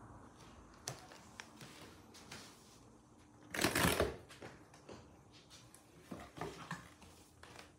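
Cardboard box rustling and scraping as its cut flap is handled, with one loud scrape of cardboard about three and a half seconds in and scattered small scratches and taps around it.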